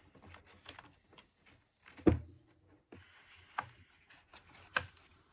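Scattered clicks and knocks of small parts and tools being handled on a workbench, with one louder knock about two seconds in.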